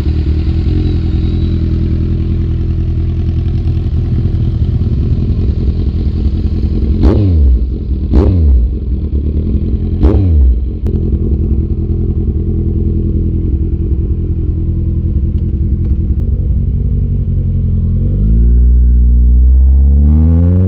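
Kawasaki Z900 inline-four engine idling steadily, blipped three times in quick succession about seven to ten seconds in, each rev rising and falling sharply back to idle. Near the end the engine note climbs steadily as the revs build.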